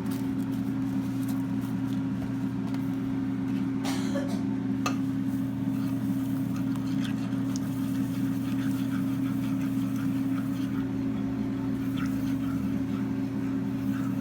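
Electric hand mixer running at a steady hum as it whips mashed potatoes, with a few clicks of the beaters knocking the bowl about four and five seconds in.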